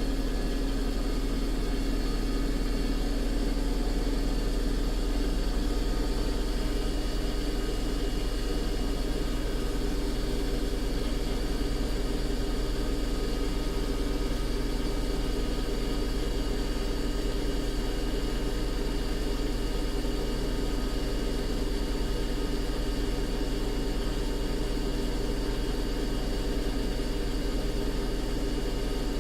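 Bosch washing machine on its spin cycle: a steady motor-and-drum drone with a deep hum and a few constant high whines, level and unchanging.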